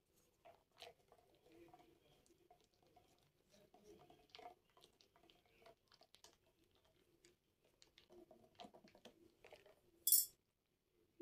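A straw stirring a drink in a plastic cup: faint, scattered clicks and taps. A short, sharp burst of hissing noise about ten seconds in.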